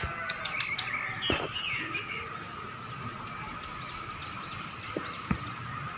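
Sooty-headed bulbul chirping: a quick run of short, high, rising-and-falling notes in the second half, after a few sharp clicks near the start. A steady thin high tone sounds underneath throughout.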